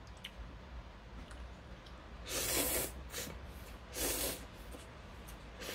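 A person slurping buckwheat noodles (momil guksu) with two loud slurps, about two and four seconds in.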